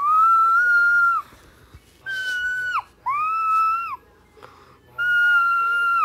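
Four high-pitched, whistle-like tones, each held at one pitch for about a second and dropping off at the end, with short quiet gaps between them.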